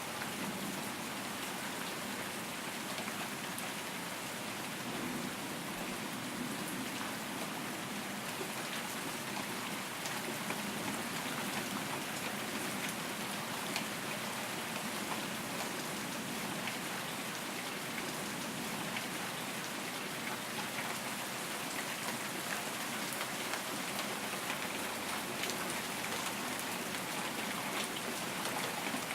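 Steady rain falling, with many individual drops ticking on a surface; no thunder in this stretch.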